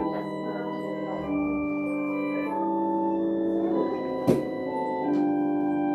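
Organ music playing slow, sustained chords that change every second or so. A single sharp knock sounds about four seconds in.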